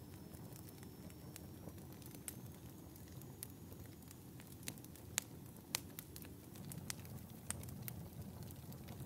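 Wood fire burning in a fireplace, crackling with scattered sharp pops over a low, steady rumble of flames. The two loudest pops come about halfway through.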